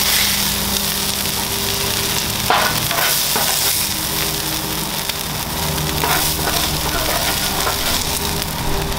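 Chopped ground beef, onions and cheese sizzling on a hot flat-top griddle, with a metal spatula and fork scraping across the griddle surface a few times as the meat is scooped up.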